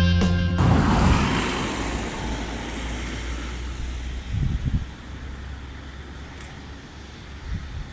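Background music cutting off about half a second in, followed by a steady rushing noise that fades down over a few seconds, with a few dull low thumps near the middle.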